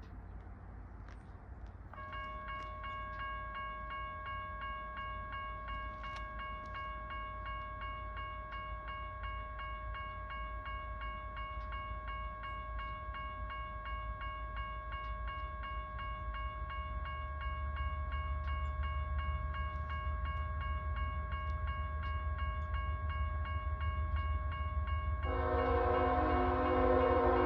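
Railroad crossing bell starts ringing about two seconds in, a fast, steady ding as the crossing signals activate. A low rumble from the approaching train grows through the second half. Near the end a locomotive air horn sounds loudly, a chord of several tones.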